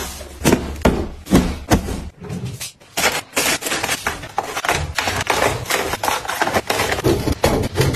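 Cardboard boxes handled on a countertop, then plastic snack packets set one after another into a metal wire pantry basket: a quick run of taps and knocks with plastic crinkling between them.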